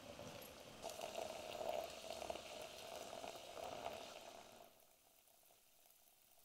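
Hot water running from a wood-fired samovar's tap into a ceramic teapot over loose tea leaves, a steady splashing pour that gets much quieter about two-thirds of the way through.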